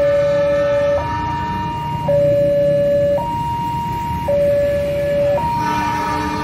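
Railway level crossing warning alarm sounding: an electronic two-tone signal switching back and forth between a high and a low note, each held about a second, which signals that a train is approaching.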